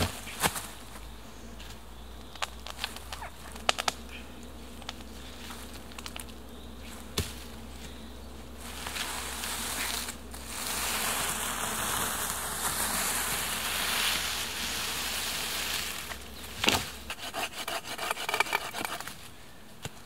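Scattered knocks of wood and steps in dry forest leaf litter, then a long log dragged over the forest floor with a steady rushing scrape for several seconds. A heavy knock follows, then a quick clatter of wood on wood as a log is set against a stick shelter wall.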